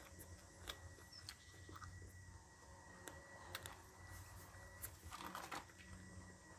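Near silence with faint, scattered light clicks and taps, and a short cluster of them about five seconds in.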